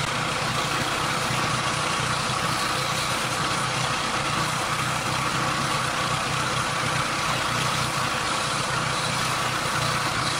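Pressure washer running steadily, its motor drone under the hiss of the water jet blasting a concrete grave, then cutting off suddenly.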